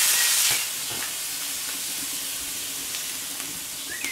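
Shrimps sizzling on a hot steel fire plate (plancha) over a wood fire. A louder hiss for the first half-second, then a steady, quieter sizzle.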